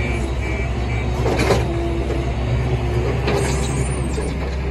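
JCB telehandler's diesel engine running steadily while it works its boom and bucket loading sand, with a brief rush of noise about a second and a half in. An intermittent beeping stops in the first half second.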